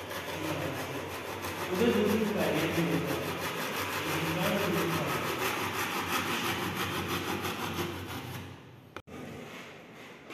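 A long knife blade sawing back and forth through a sheet of thick cardboard: a steady rasping scrape that stops about nine seconds in.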